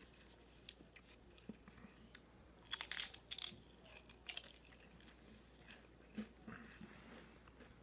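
Biting into and chewing a Pringles potato crisp: quiet crunching and crackling, densest about three seconds in, then sparser chewing.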